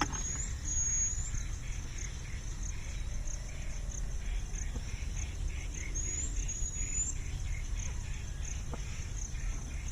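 Insects chirping in a steady pulsing rhythm, about three pulses a second, with two pairs of short rising bird whistles, one at the start and one about six seconds in, over a steady low rumble.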